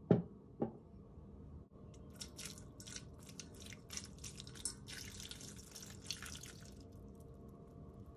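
Two short knocks near the start, then water poured from a mug onto dry kibble in a stainless steel bowl, splashing and trickling for several seconds before stopping.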